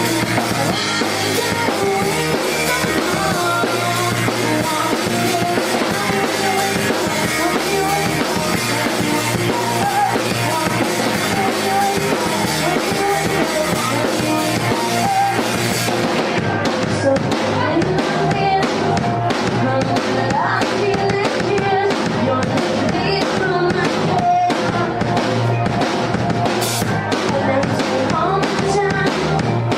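Live pop-rock band playing a song, with a full drum kit driving a steady beat under the band. About halfway through, the cymbal wash drops away and the individual drum hits stand out sharply.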